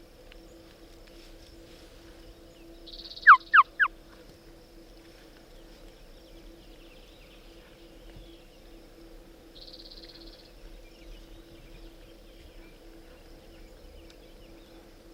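Three sharp, loud turkey-style call notes in quick succession, about three seconds in, over a faint steady chorus of insects or frogs.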